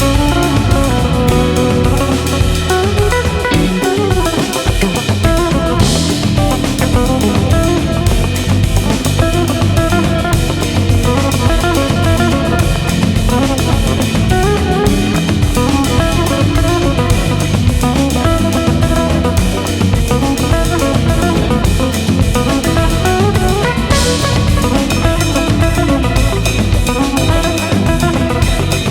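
Loud background music with drums and guitar and a steady beat, with a cymbal crash about six seconds in and another near the end.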